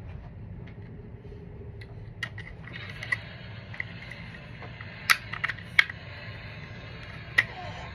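Plastic parts of a reach grabber tool clicking and tapping as they are handled and fitted together: a handful of sharp clicks, the loudest about five and six seconds in, over a steady low background hum.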